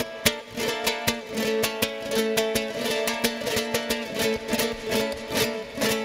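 Solo ukulele played hard: quick, sharp strums and plucked notes in fast succession, with a few notes ringing on underneath.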